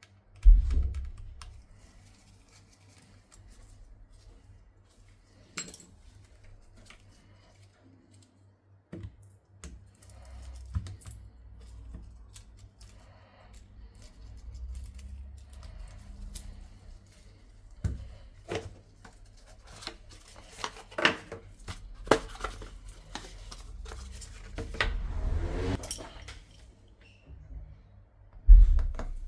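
Small clicks, taps and scrapes of hand tools and phone parts being handled on a work surface during an iPhone 11 Pro Max screen replacement. There are dull thumps, the loudest just after the start and near the end.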